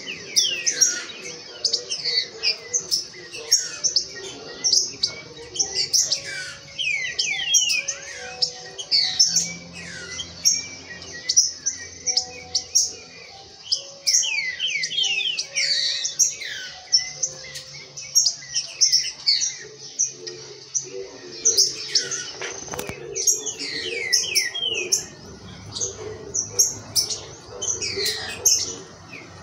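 Caged green-winged saltators (trinca-ferro) calling and singing during a warm-up session: a dense, unbroken run of short, quick falling chirps.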